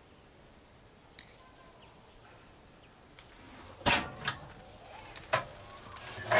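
Metal wood-burning stove being opened: a few sharp metal clanks in the last two and a half seconds, the loudest at the very end, briefly ringing.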